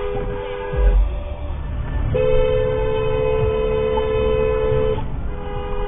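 Two-note car horn honking in long, steady blasts: one ends about a second in, one is held for about three seconds, and a third starts near the end, over low road rumble.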